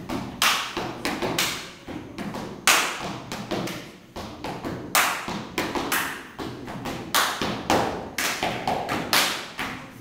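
Stepping: loud foot stomps on a hard floor mixed with hand claps and slaps, coming in an uneven rhythm, each hit followed by a short echo.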